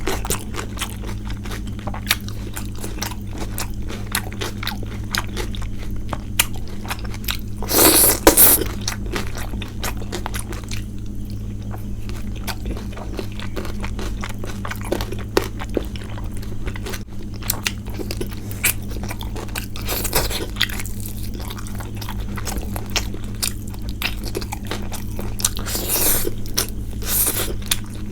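Close-miked eating of a rice meal with curries, with chewing, biting and wet mouth sounds over a steady low hum. A few louder crunchy bursts stand out, about eight seconds in, around twenty seconds, and near the end.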